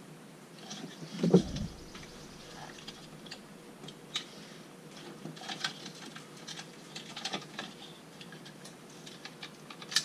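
Small scattered plastic clicks and rattles from a 1996 C4 Corvette's inside door handle assembly as it is handled and worked into the door panel, with one louder dull knock about a second in.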